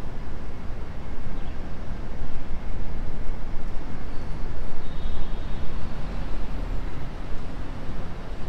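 Outdoor street noise made up of a heavy, unsteady low rumble that shakes quickly in loudness, like traffic or wind on the microphone, with faint brief high tones near the middle.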